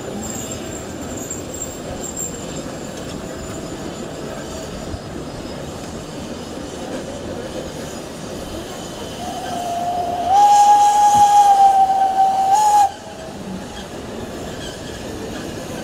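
Furka Steam Railway steam locomotive's whistle blowing one long, loud note about nine seconds in, rising a little as it opens and then held for a few seconds before cutting off sharply. Underneath, the steady running noise of the train's carriages rolling on the track.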